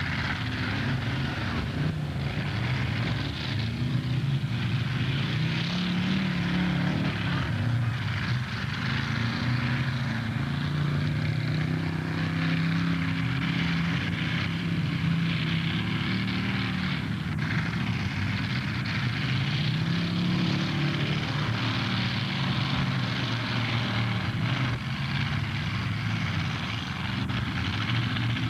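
Engines of several demolition derby cars running and revving together: a steady drone whose pitch rises and falls every few seconds.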